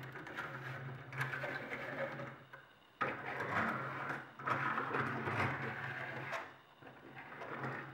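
Die-cast toy cars rolled by hand across a tabletop, their wheels making a whirring rumble in about four short runs with brief pauses between.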